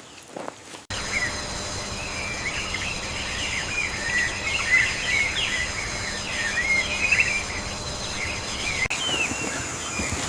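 Many small birds chirping and twittering over a steady high insect-like hum and a low background noise, cutting in abruptly about a second in.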